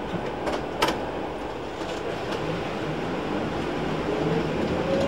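Cab noise of an electric trolleybus on the move over a wet road: a steady running rumble and hiss, with two sharp clicks in the first second. Near the end a thin whine rises in pitch as the traction motor picks up speed.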